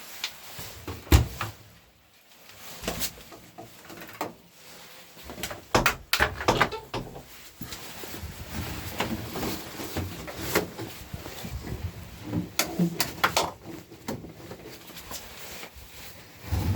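A Bosch Classix 7 tumble dryer making irregular knocks and clicks, the sharpest about a second in. From about five seconds in a steady low rumble runs underneath.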